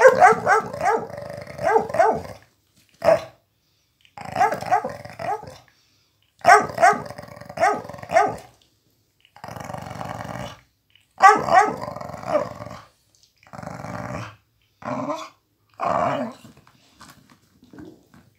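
Dogs growling in play over a rubber chew toy, a pit bull and a miniature pinscher, in bursts of one to two seconds with short pauses between, dying down near the end.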